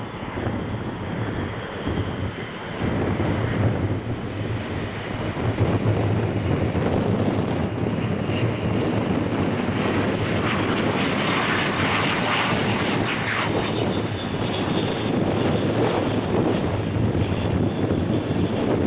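Airbus A400M transport flying past low and slow. Its four TP400 turboprop engines and eight-bladed propellers give a steady low hum under a rushing engine noise. The noise grows louder over the first few seconds and is strongest about halfway through.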